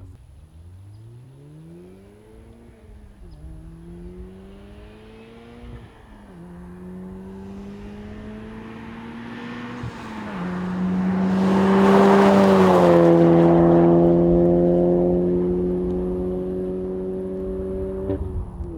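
VW Golf R's turbocharged 2.0-litre four-cylinder through an AWE SwitchPath exhaust, accelerating up through the gears with the revs climbing and dropping at three upshifts. It then passes close by, loudest about two-thirds of the way in, and the pitch drops as it goes away.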